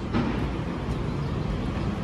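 City street ambience: a steady low rumble of distant traffic and open air, without any single distinct event.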